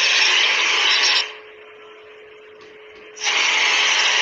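Aerosol spray can hissing in two long sprays: the first stops about a second in, the second starts about three seconds in.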